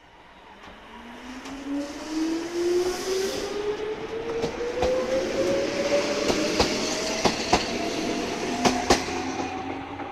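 Ichibata Electric Railway 3000-series electric train (set 3005F) accelerating away from a station: its traction motors whine and climb steadily in pitch while the cars pass close by. From about four seconds in, sharp clicks come in pairs as the wheels cross rail joints, and the sound fades near the end as the train moves off.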